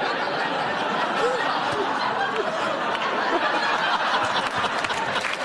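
Studio audience laughing, a dense crowd of laughter with individual laughs and chuckles rising out of it; clapping starts near the end.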